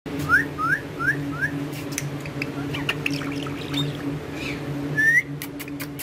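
Green ringneck parakeet making short rising chirps, four in quick succession near the start, then scattered short calls and clicks and one more rising note about five seconds in. A steady low hum runs underneath.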